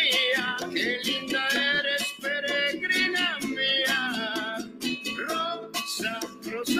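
A song: a man singing over strummed acoustic guitar.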